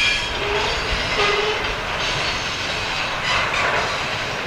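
Freight cars rolling along the track, a steady clatter of steel wheels on rail as the tail end of the train passes.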